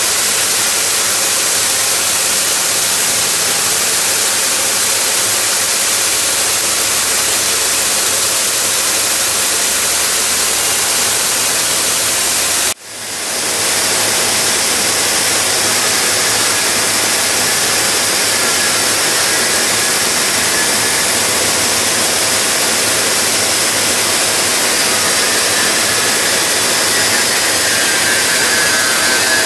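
Wet tube polishing machine running, its polishing heads working a metal tube under water: a steady, loud hiss. The sound drops out sharply about thirteen seconds in and swells back within a second.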